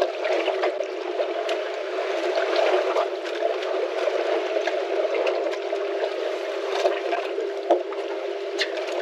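Water lapping and sloshing against a fishing boat's hull, with a steady hum and scattered small clicks.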